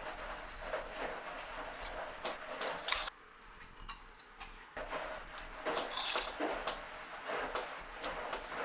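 Craft knife drawn through vegetable-tanned leather along a steel ruler, a series of short scraping cuts trimming a watch strap to size, with a pause a few seconds in; the ruler and knife shifting on a wooden bench.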